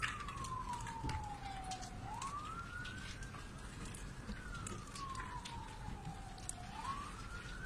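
Emergency vehicle siren wailing. A slow tone falls over about two seconds, sweeps quickly back up and holds, twice through.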